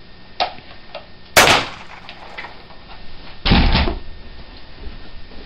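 A sharp bang about a second and a half in, then a heavier, deeper thud about two seconds later, with a couple of light knocks before them.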